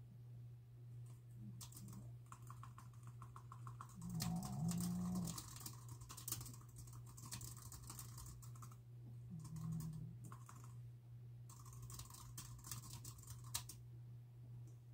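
Typing on a computer keyboard in bursts of quick key clicks. Twice, about five seconds apart, a sleeping dog lets out a low snore about a second long, louder than the typing.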